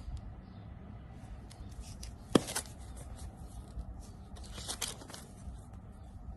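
Packaging being handled: rustling and scraping with scattered light clicks, and one sharp tap about two and a half seconds in.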